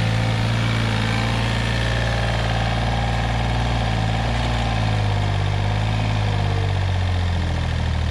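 Tractor engine idling steadily, its pitch shifting slightly about five seconds in.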